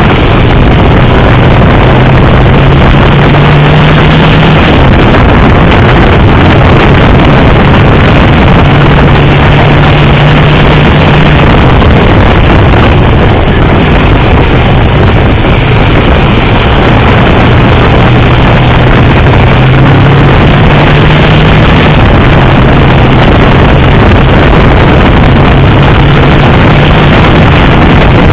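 Onboard sound of a motorcycle ridden on a race circuit: loud, constant wind rush over the microphone with the engine's low drone underneath, its pitch rising and dropping several times as the rider works the throttle through the corners.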